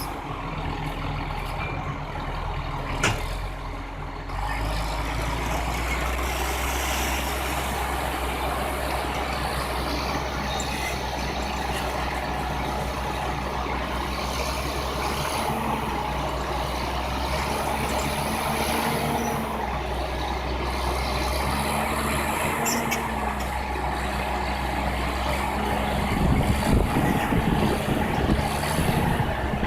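Heavy diesel machinery running steadily, with a sharp click about three seconds in; it grows louder and rougher near the end.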